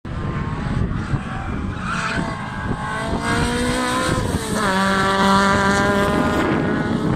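Mk2 Ford Escort race car's engine pulling hard past. Its pitch climbs for several seconds, drops suddenly about four and a half seconds in, then holds nearly steady.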